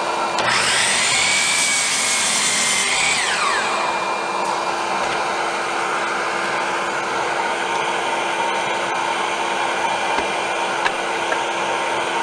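Hercules dual compound miter saw motor spinning up with a rising whine about half a second in, running steadily for a couple of seconds, then winding down. A steady blower-like hiss runs underneath.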